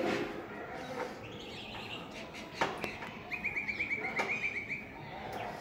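A small bird chirping: a quick run of about ten short, even notes in the second half, with a fainter chirping run earlier. A couple of sharp clicks stand out, the loudest about halfway through.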